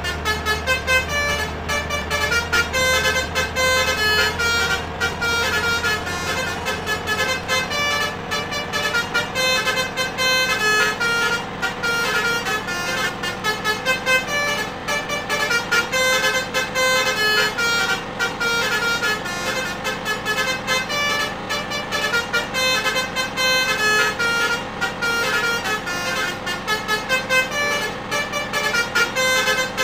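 Basuri multi-trumpet bus horn (telolet) playing a melody as a long run of quick-changing notes.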